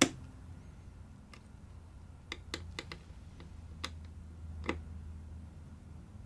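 Small screwdriver and metal screws clicking as a Thermalright LGA1700 CPU contact frame is screwed down around the CPU in quarter turns: one sharp click at the start, then a scatter of about eight lighter ticks. A faint steady low hum runs underneath.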